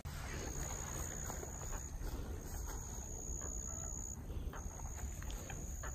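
A high, steady insect trill in long stretches broken by short pauses, over a faint low rumble.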